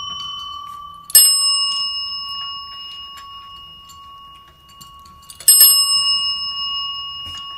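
Chrome service bells on a table struck twice, about four seconds apart, by cats pawing them. Each strike gives a bright ring that dies away slowly, and a ring from an earlier strike is still fading at the start.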